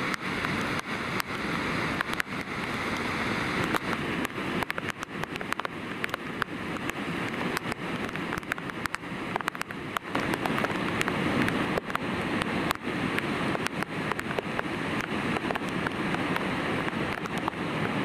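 Godafoss waterfall: the steady rushing roar of the falls, with wind buffeting the microphone in short gusts and clicks.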